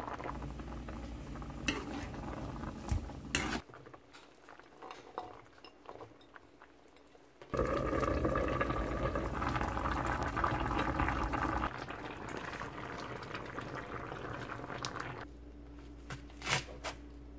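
Soy-braised chicken stew (jjimdak) boiling in a wide pan, a dense bubbling with a few sharp clinks of metal against the pan. The bubbling drops away for a few seconds, then returns louder under a glass lid before easing off, with two clicks near the end.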